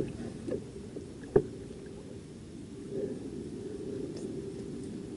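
Fishing kayak on the water: a steady low rumble with one sharp knock about a second and a half in as gear is handled aboard.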